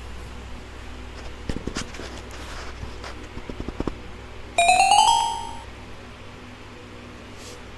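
A short electronic chime, a quick rising run of bright tones lasting about a second, with a few faint clicks before it.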